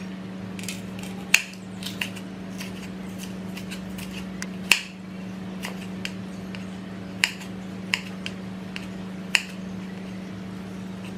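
Kitchen knife striking a wooden cutting board while slicing green chilies and baby corn: sharp, irregular knocks about a second apart. A steady low hum runs underneath.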